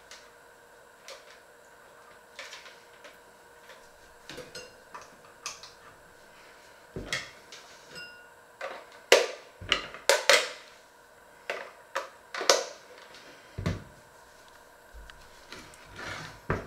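Kitchen handling noise: a string of irregular clicks, clinks and knocks as utensils and dishes are picked up and set down, loudest in the middle, over a faint steady hum. Near the end a stainless steel bowl is lifted off a digital kitchen scale.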